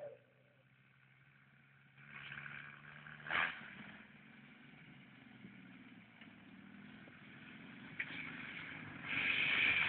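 Off-road buggy's engine running at a low, steady hum, then rougher and noisier after a sharp knock about three seconds in, getting clearly louder near the end.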